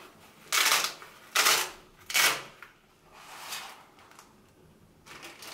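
Hook-and-loop (Velcro) fastenings on a nylon knife roll case being ripped apart: three short, loud rasps in about two seconds, followed by softer rustling as the fabric case is unrolled.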